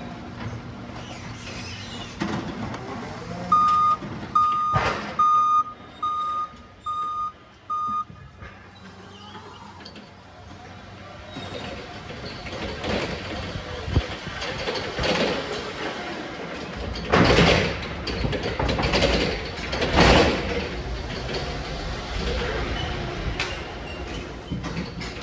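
Forklift reversing alarm beeping six times, a little under a second apart, as the forklift backs up. Then the forklift rattles and clunks with several loud knocks as it drives into a truck trailer.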